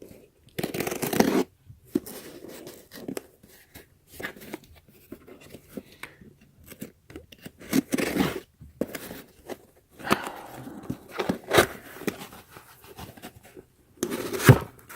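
Shipping packaging being opened by hand: irregular bursts of tearing, scraping and rustling.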